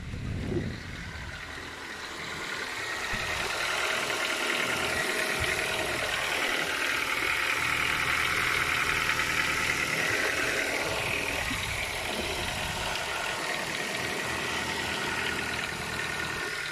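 2008 Ford Focus 1.6 Zetec petrol engine idling from a cold start with a fast ticking clatter, growing louder over the first few seconds and then steady. The owner suspects the valves; the clatter lasts the first two or three minutes while the engine is cold.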